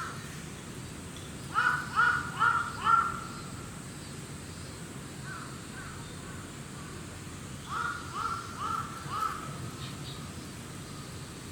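Crow cawing: a quick series of four loud caws, two faint ones a few seconds later, then another series of four softer caws.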